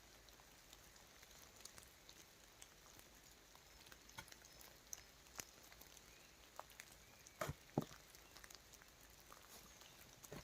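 Faint, scattered taps and clicks over near quiet, with two sharper knocks close together about seven and a half seconds in.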